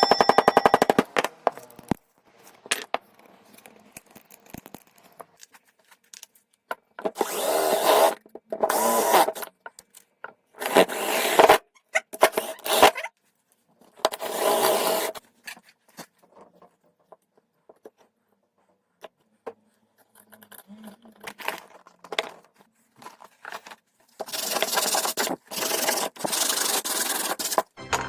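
Sandpaper rubbed back and forth over wood in strokes about a second long, coming in groups with pauses between. This smooths the filled-over screw holes flush with the surface. A quick rattle of clicks comes right at the start.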